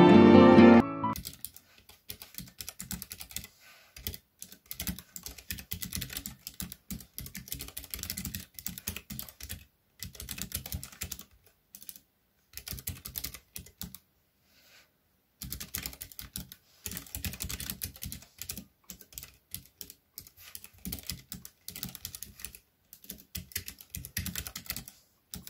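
Typing on a Keychron K3 V2 ultra-slim mechanical keyboard with optical switches: rapid key clicks in runs broken by short pauses. Music fades out about a second in.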